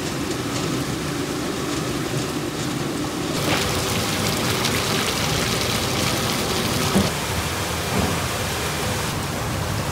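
Water spraying and splashing steadily onto broccoli in a blanching and chilling processing line, a rain-like hiss that grows brighter about three and a half seconds in. There is a sharp knock about seven seconds in and a softer one a second later.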